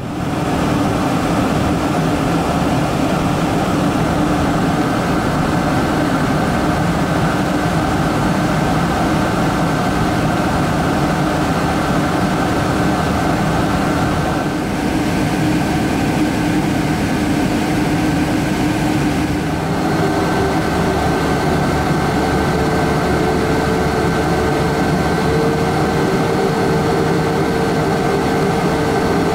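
Boeing 777-200's Rolls-Royce Trent jet engines heard from inside the cabin: a loud, steady drone with several held whining tones, whose pitch shifts about fifteen seconds in and again about twenty seconds in.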